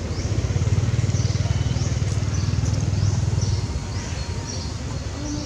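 A low, pulsing engine rumble that swells for about three seconds and then fades, like a motor vehicle going by, with faint short high chirps above it.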